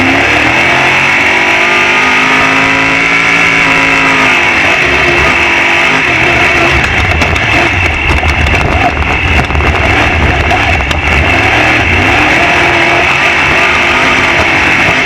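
Off-road race vehicle's engine running hard, its pitch sweeping up and then down over the first few seconds, then holding steady over a loud, even rushing noise.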